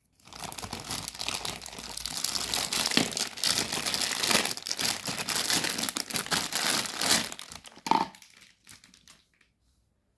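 Packaging being crinkled and torn open while a mini chopper is unboxed: dense crackling rustle for about eight seconds, then a few light clicks as it dies away.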